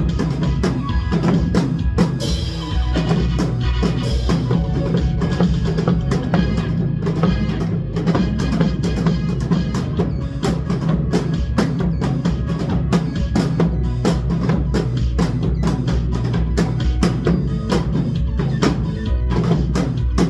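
Trot song playing with janggu hourglass drums struck along in a fast, steady rhythm.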